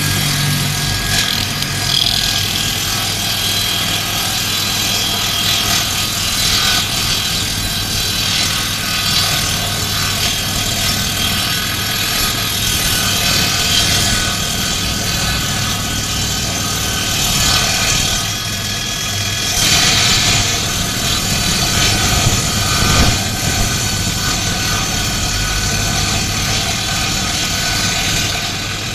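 Electric woodworking power tool running steadily under load, with a motor hum and a high-pitched cutting noise that swells briefly a few times.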